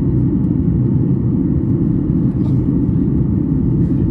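Steady low cabin rumble of a Boeing 737 airliner in flight: jet engine noise and rushing airflow heard from a window seat, even and unchanging.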